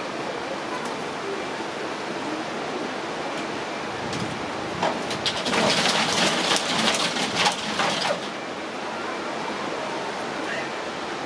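A steady rushing hiss, and about five seconds in, some three seconds of loud rattling and scraping as a Japanese macaque scrambles on a corrugated roofing sheet.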